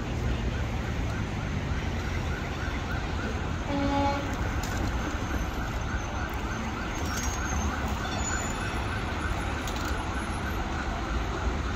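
City street traffic rumble with an emergency-vehicle siren wavering rapidly, about three sweeps a second, from about two seconds in. A short horn-like tone sounds about four seconds in.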